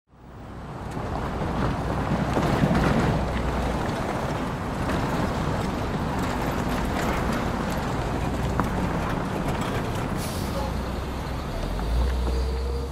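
Steady street ambience dominated by traffic noise, fading in over the first second.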